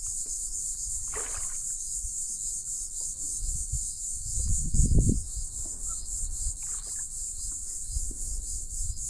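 Steady high-pitched buzzing of an insect chorus, with a brief splash or rustle about a second in. A louder low rumble with knocks comes around four to five seconds in.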